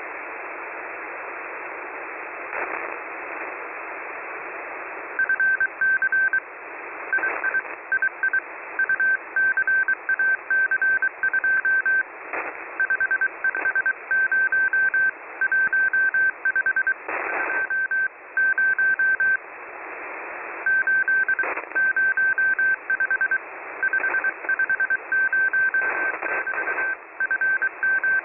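Morse code received on a shortwave radio: a single-pitch beep keyed on and off in dots and dashes over steady receiver hiss, beginning about five seconds in. A few brief crackles of static break through.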